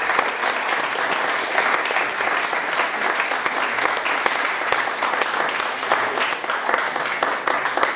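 Audience applause: many hands clapping at once, dense and steady.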